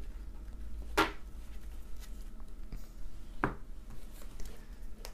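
Two sharp knocks on a wooden tabletop, about a second in and again about two and a half seconds later, as a stack of trading cards and a wax pack are handled, with faint rustling between.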